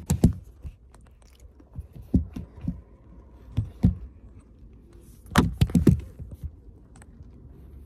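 Scattered knocks, clicks and rustles of a phone being handled and set in place, with the loudest cluster of knocks about five and a half seconds in.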